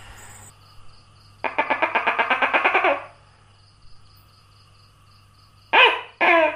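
Gecko calling: a rapid rattling run of about ten pulses a second lasting about a second and a half, then near the end two short falling notes in quick succession.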